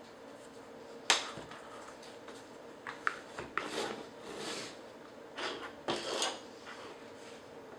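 Handling sounds while unboxing a phone: a sharp click about a second in, then a few small clicks and short rustling, sliding swishes of packaging.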